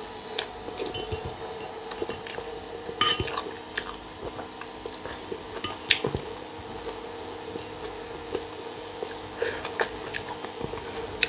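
A metal fork clinking and scraping against a glass bowl and a ceramic plate a few times, the sharpest clink about three seconds in, with quiet chewing of macaroni and meat in between.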